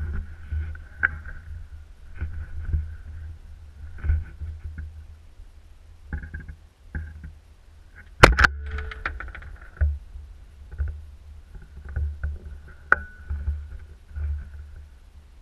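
A single .30-06 rifle shot about eight seconds in, very loud and sharp with a brief echoing tail, heard from a camera mounted on the rifle. Between times there is a steady low rumble of wind on the microphone.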